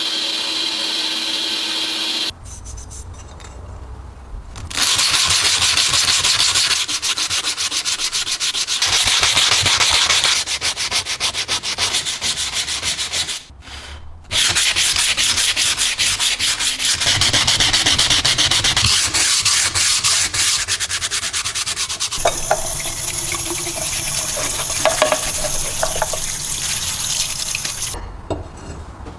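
Abrasive hand sanding on the parts of an old vegetable slicer under restoration: rapid, scratchy rubbing strokes that run in several stretches, with abrupt breaks between them.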